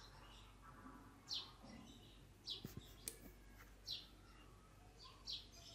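Faint bird chirping in the background: short, high, falling chirps repeated about every second and a half over low room noise, with a single faint click about three seconds in.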